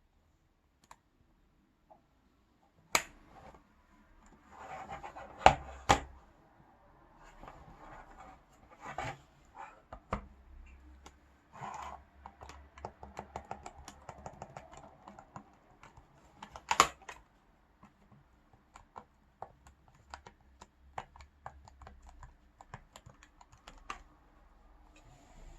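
Buttons on LG system air-conditioner wired remote controllers clicking as they are pressed: many light clicks in quick runs, with a few louder knocks and handling rubs in between.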